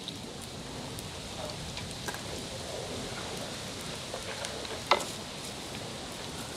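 Fish frying in hot oil: a steady sizzle with faint ticks and one sharp click about five seconds in.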